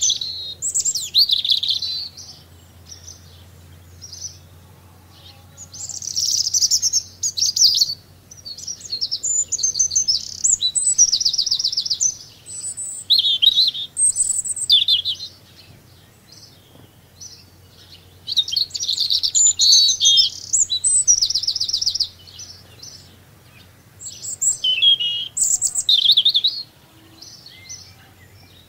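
Songbird singing in phrases of quick high trills and chirps, each a second or two long with short pauses between, over a faint low hum.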